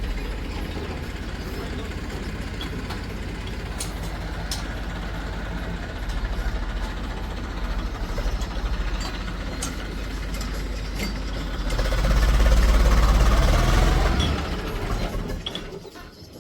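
Heavy diesel engine running steadily. It grows louder about twelve seconds in, then fades away near the end.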